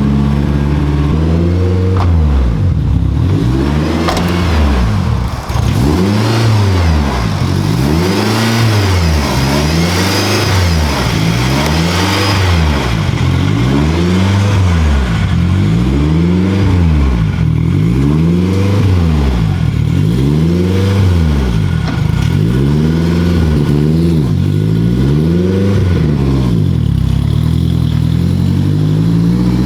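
Honda S2000's four-cylinder engine running through a titanium Amuse R1000 exhaust, first idling briefly and then revved over and over, each rev rising and falling about every two seconds.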